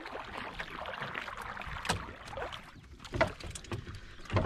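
Water swishing and lapping along the hull of a slowly moving wooden boat, with a few knocks on the boat's wooden planks near the middle and the end.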